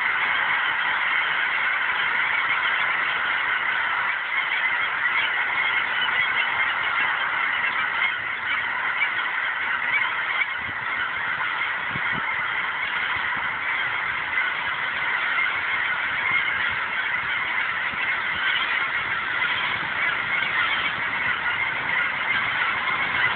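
A huge flock of geese in flight calling all at once: a dense, unbroken chorus of overlapping honks with no single call standing out.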